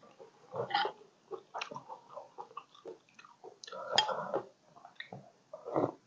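Close-up mouth sounds of chewing a mouthful of Isan sausage, in irregular short bursts, with louder bites about four seconds in and near the end.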